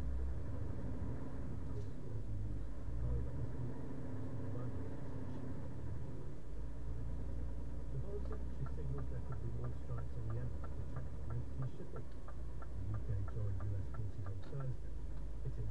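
Car driving, heard from inside the cabin: a steady low rumble of engine and road noise. About halfway through, the turn-signal relay starts clicking evenly, several clicks a second, and stops shortly before the end.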